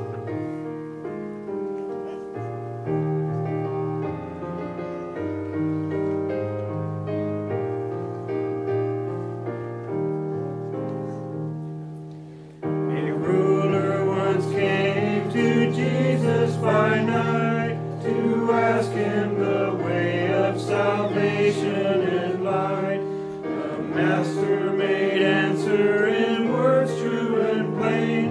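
A keyboard plays the introduction to a hymn in sustained chords. About twelve seconds in, the congregation starts singing the hymn over the keyboard accompaniment, and the sound gets suddenly louder.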